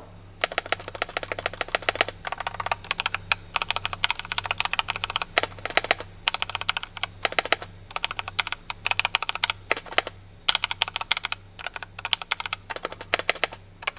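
Typing test on a HEXGEARS X3 TKL mechanical keyboard with red Kailh Box linear switches: rapid runs of keystrokes in bursts with short pauses, the keys clacking lightly as they bottom out.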